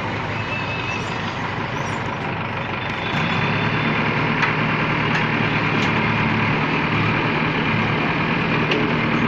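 Diesel engine of a JCB 3DX backhoe loader running close by. About three seconds in it gets louder and holds steady at the higher level.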